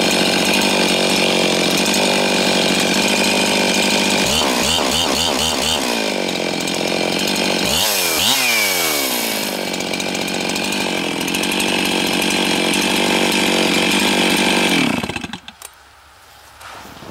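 Husqvarna 365 two-stroke chainsaw running at high revs, the engine speed wavering a few times and dipping sharply then climbing back up about eight seconds in, then shut off about fifteen seconds in.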